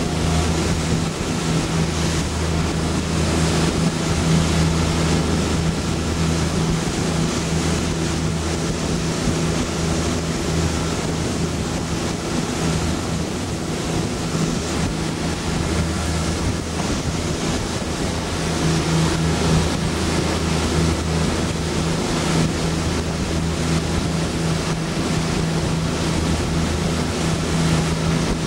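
A boat's engine running steadily under way, a low even hum, with water rushing past the hull and wind buffeting the microphone.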